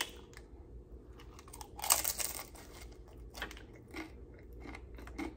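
Close-up eating sounds: a loud crunchy bite into a tortilla chip loaded with pulled pork about two seconds in, then chewing with a few smaller crunches.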